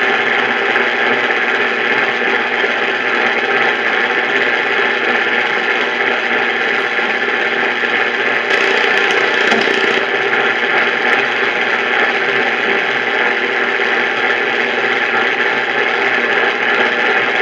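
Steady radio static hiss from a receiver, with a brief rise in the hiss about nine seconds in.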